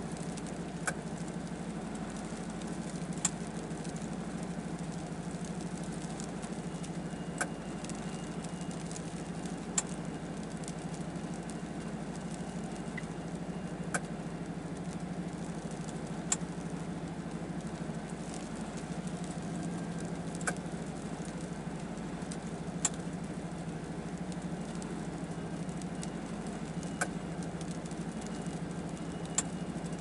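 Vehicle engine idling steadily, heard from inside the cab, with sharp single ticks every two to four seconds from ice pellets striking the windshield.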